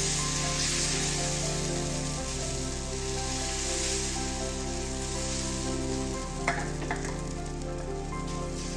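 Food frying on a hot tawa with a steady sizzle, and two sharp clicks about six and a half seconds in. Soft background music with long held chords plays underneath.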